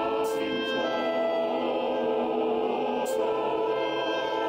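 Choral music: voices singing long held notes that change every second or so.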